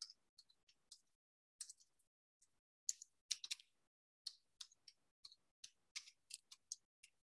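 Faint, irregular clicking of computer keyboard keys as a word is typed, in small clusters of keystrokes with short pauses between them.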